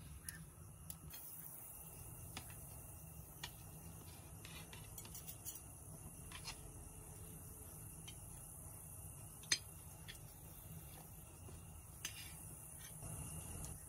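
Scattered light clinks and taps of cutlery against dishes, the sharpest about nine and a half seconds in, over a steady high hiss.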